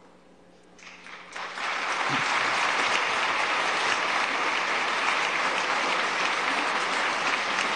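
A chamber full of legislators applauding. The clapping swells up about a second in and then keeps going steadily.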